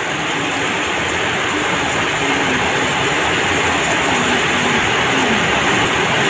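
Paddy rice seed pouring in a steady stream from a sack into a bucket of water: a continuous rushing noise of grain hitting the water, growing slightly louder.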